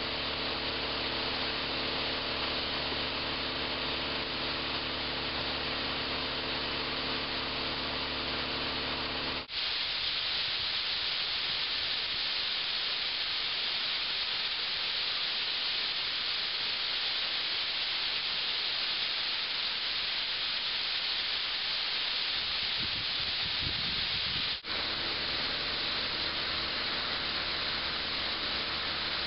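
A steady engine hum with hiss over it. Then, after a break about a third of the way in, a dense, steady hiss of blasting sand pouring from a bucket into a sandblaster pot's hopper. The hum comes back under the hiss after a second break near the end.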